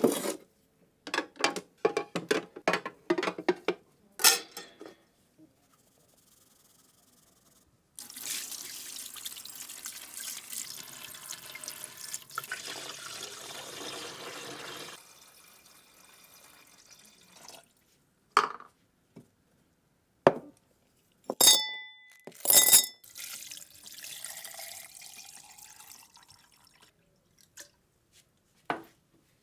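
Metal parts knocking and clinking, several with a short ringing tone, around a stretch of about seven seconds of steady running-water hiss in the middle.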